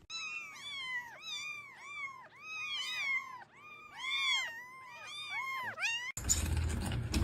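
A cat meowing over and over in short, high, arching calls, about two a second, which stop abruptly about six seconds in.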